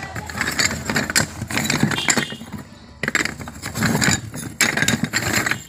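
Unglazed terracotta kulhad cups clinking and clattering against one another as a hand rummages through a bag of them, with a short lull partway through.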